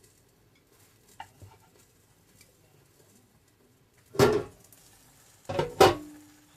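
Metal cookware clanking: three loud knocks of pans or lids being handled, one about four seconds in and two close together near the end, the last ringing briefly.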